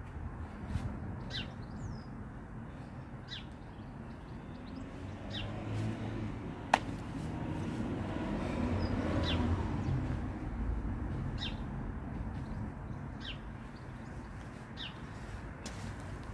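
Small birds giving short, falling chirps every second or two over a low outdoor rumble that swells for a few seconds in the middle. One sharp click about seven seconds in.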